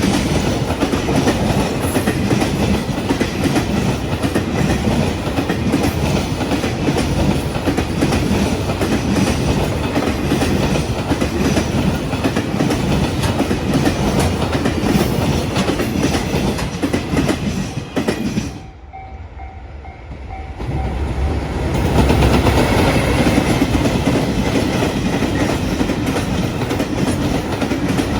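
Container freight train rolling past close by: a continuous loud rumble of wheels on rail with clickety-clack from the wagons. About two-thirds through the sound drops away sharply for about two seconds, then returns.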